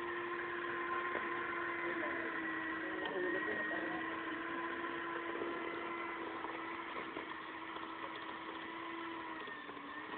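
Electric hand mixer running at a steady speed, beating cream in a bowl. Its motor whine dips slightly in pitch about three seconds in and again near the end.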